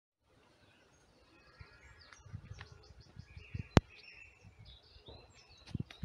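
Outdoor park ambience fading in: small birds chirping and twittering, over low thumps and rumble. A single sharp click a little before four seconds in is the loudest sound.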